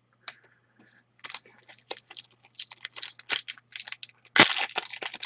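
A hockey card pack's foil wrapper being torn open and crinkled, a quick run of crackles and rips with the loudest tear near the end.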